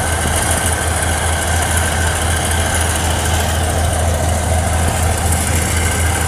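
A heavy vehicle's engine running steadily, a loud, even low drone with no change in speed.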